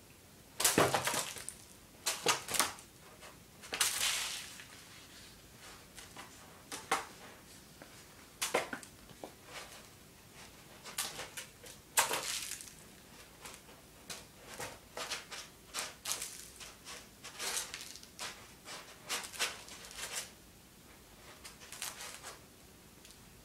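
A cat digging and scratching at cat litter in a plastic litter box, in irregular bursts of scraping and rattling. The loudest bursts come about a second in and again near the middle.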